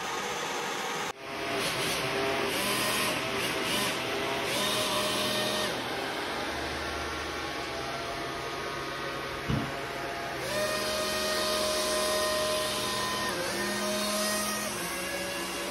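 Electric motors of a 1989 Taiyo/Tyco Typhoon remote-control hovercraft running: a steady whirr from the lift fan, with whines that rise and fall in pitch as the two rear propeller fans are throttled to steer. There is a brief dip about a second in, and a single knock about nine and a half seconds in.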